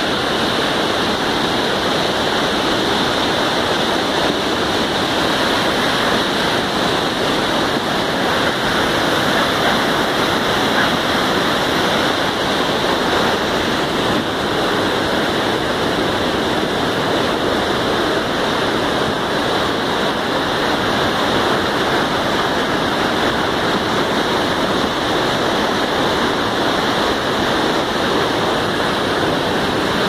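River in flood: fast, muddy floodwater rushing and churning in a steady, loud, unbroken rush of turbulent water.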